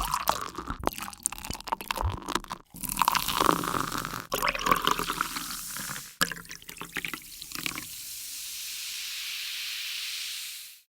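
Water sound effect: irregular splashing and dripping, then a steady rushing hiss like running water from about eight seconds in, which cuts off near the end.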